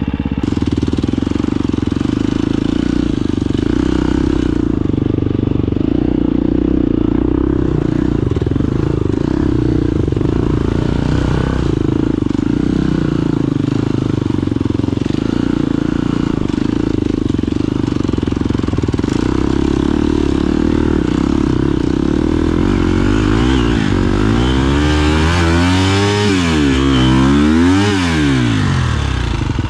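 Husqvarna FE250 enduro motorcycle's single-cylinder four-stroke engine running as the bike is ridden, holding a fairly steady note. Near the end it is revved up and down several times in quick succession.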